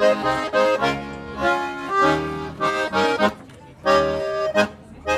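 A march played solo on a single instrument: sustained chords in short, punctuated phrases, with a brief pause a little past three seconds in.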